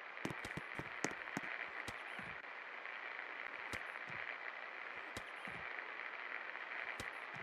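56-inch Paradise industrial ceiling fan running with a steady whooshing hum, and scattered sharp clicks at irregular intervals.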